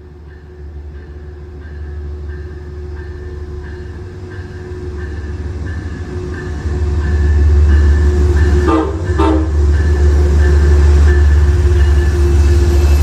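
Diesel passenger locomotive approaching and running in, its engine and wheel rumble growing steadily louder. A high ding repeats evenly throughout. About nine seconds in, the horn gives two short blasts as the rumble peaks.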